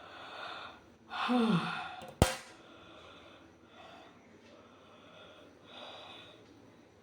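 A person yawning: a breathy exhale, then a loud yawn about a second in with the voice sliding down in pitch, a single sharp click just after it, and several softer breathy exhales.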